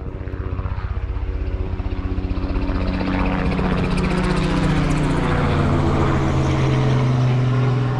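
A motor engine passing, growing louder over the first few seconds and slowly falling in pitch.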